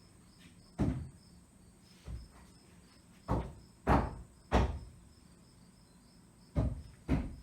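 A series of about seven irregular dull knocks, loudest in the middle, over a faint high chirping that repeats a few times a second.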